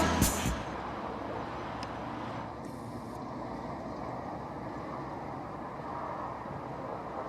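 Music fades out in the first half second, leaving steady outdoor background noise: an even rumble and hiss with no distinct events.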